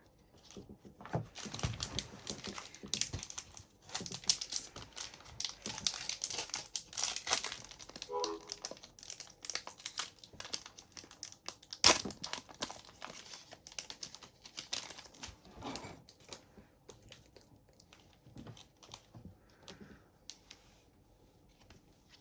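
Wrapper of an Upper Deck hockey card pack crinkling and tearing as it is opened and handled, a dense crackle with a sharper snap about halfway through, thinning out over the last few seconds.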